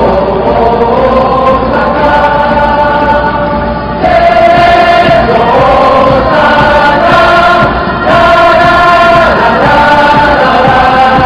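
Massed voices of a stadium crowd singing a slow chant together, in long held notes that change phrase every few seconds, over a steady crowd hubbub.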